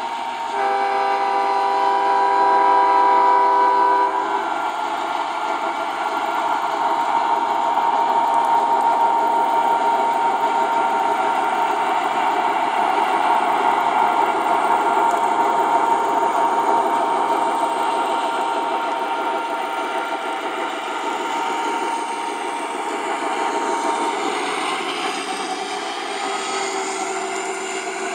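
O scale model train's electronic sound system sounding a diesel horn blast about a second in, held for about three seconds. After it come the steady running sounds of the train rolling along the track, with a steady high whine, changing character in the last few seconds as the train goes by.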